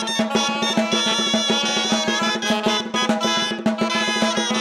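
Live band playing an instrumental passage: a busy drum beat with snare rolls over a sustained low note and other pitched instruments.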